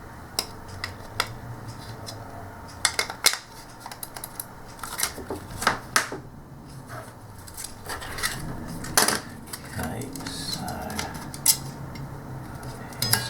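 Irregular clicks and taps of the small plastic and metal parts of a TV remote being handled and fitted back together, over a low steady hum.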